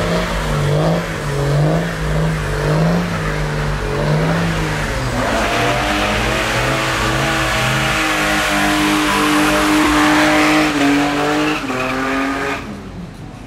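Volvo 700-series sedan doing a burnout. The engine is revved up and down for the first few seconds, then held at high revs with the rear tyres spinning and squealing for about seven seconds. The sound drops away sharply near the end.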